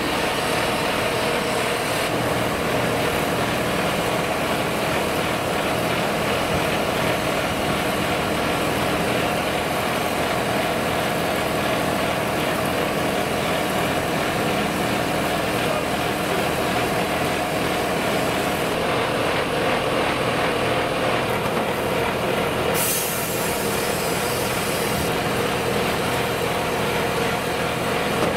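Heavy tractor-driven mobile wood chipper and its tractor engine running steadily. A burst of high hiss, like released air, sounds a little past two-thirds of the way through.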